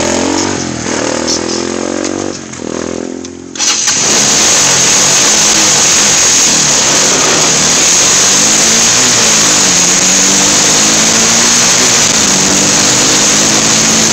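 A small vehicle engine revving up and down. About three and a half seconds in, a sudden loud, steady rush of noise swamps it, with the engine still audible underneath, rising and falling in pitch.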